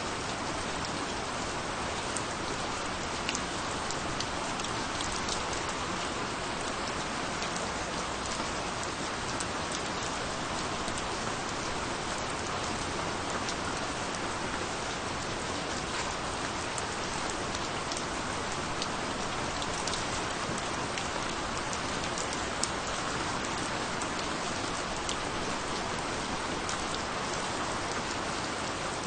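Steady rainfall, a dense even hiss with many separate drops ticking on a surface.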